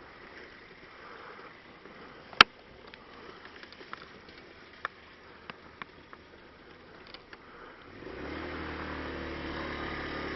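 Motorcycle moving slowly, quiet, with one sharp loud click about two seconds in and a few lighter clicks after it. Near the end its engine sounds out louder and steady, idling as the bike comes to a stop to park.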